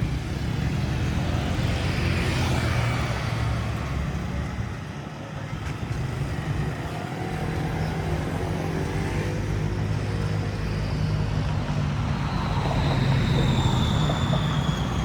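Motor vehicle engines running past, their pitch rising and falling, with a thin high whine that slowly falls in pitch near the end.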